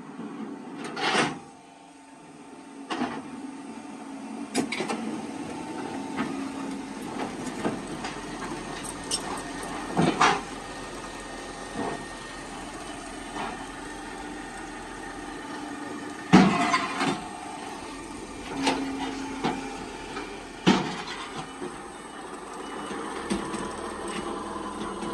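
Concrete block-making machine line running: a steady mechanical hum with irregular, sharp metallic clanks and knocks as steel pallets of freshly pressed hollow blocks move along the chain conveyor.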